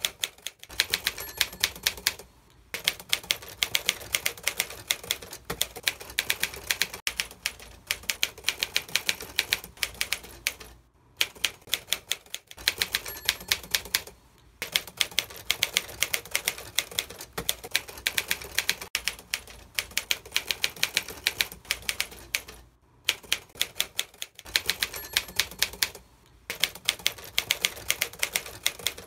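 Typewriter key clicks as a typing sound effect: a rapid run of keystrokes, broken by short pauses every few seconds.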